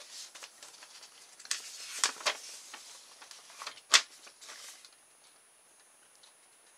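Paper instruction leaflet being unfolded and handled: crackling rustles with several sharp paper snaps, the sharpest about four seconds in, dying away about five seconds in.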